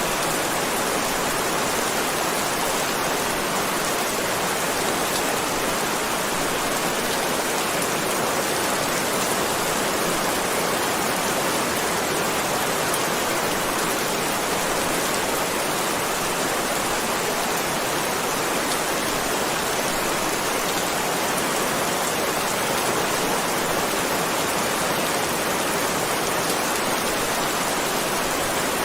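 Heavy rain falling steadily, a dense, even hiss of raindrops without let-up and without thunder.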